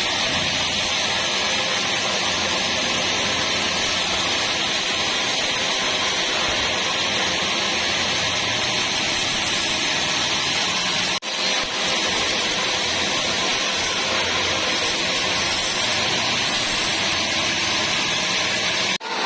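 Sawmill saw running steadily through a log, a loud even hiss of cutting that breaks off briefly about eleven seconds in.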